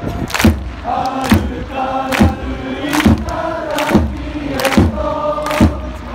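A football supporters' section singing a chant in unison, with a loud beat struck a little more often than once a second and hands clapping along on it.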